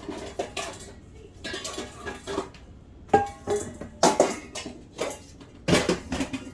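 Kitchen dishes and cookware being handled and knocked together as a bowl is fetched: a string of sharp clinks and clatters, some with a brief ring. The loudest come about three and four seconds in and again near the end.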